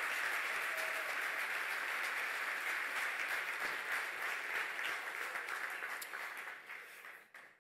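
Audience applauding steadily, then the applause dies away over the last two seconds or so.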